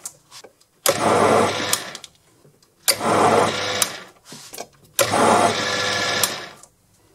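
Proxxon PD 250/e mini lathe's motor and spindle running in three short spells of one to two seconds, each starting abruptly and dying away, as passes are taken while thread-cutting with a carbide insert.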